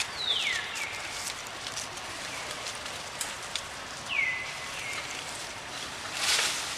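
Infant long-tailed macaque crying: high calls that slide down in pitch and level off, one pair at the start and another about four seconds in, over a steady forest hiss. A short rustle near the end.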